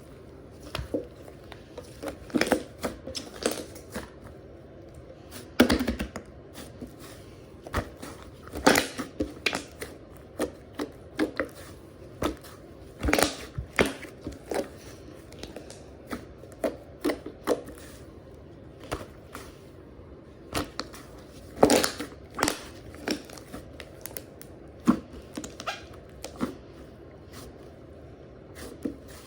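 Slime being worked by hand close to the microphone, giving irregular sticky clicks and pops, a few every second with some louder ones.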